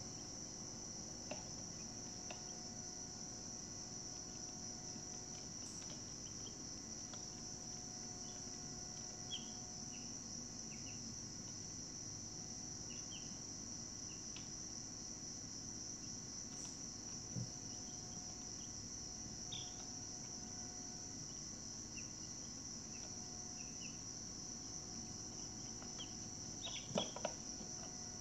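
Steady, high-pitched insect chorus trilling without a break, with a few faint short chirps scattered through it and a brief burst of louder sounds near the end.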